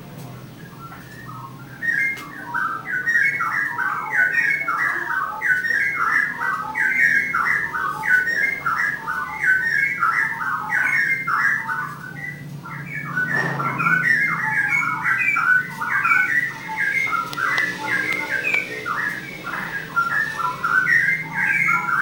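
A caged songbird singing a long, continuous song of rapid whistled phrases, starting about two seconds in.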